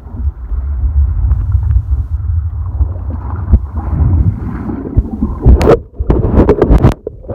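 Muffled low rumble of churning seawater and surf pressing on a submerged phone's microphone. From about five and a half seconds in, a run of sharp knocks and clatters as the phone is tumbled against the bottom or grabbed.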